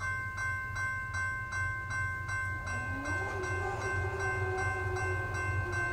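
Railroad crossing warning bell starts ringing suddenly and keeps on in a fast, even clang of about two and a half strikes a second. It is the crossing's warning that a train is approaching, with the gates coming down.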